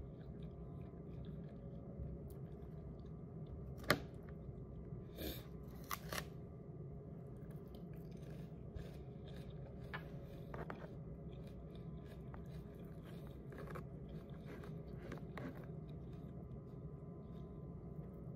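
Someone eating with a metal fork and knife from plastic food containers: chewing, with cutlery clicking and scraping against the plastic. Several sharp clicks stand out, the loudest about four seconds in and more around five to six seconds, over a steady low hum.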